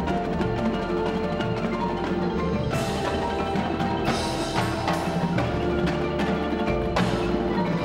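Indoor drumline and front ensemble playing: marimbas and other mallet keyboards over snare drums, tenor drums and bass drums, with sustained low bass notes underneath. Bright crashes ring out about three seconds in, again about a second later, and near the end.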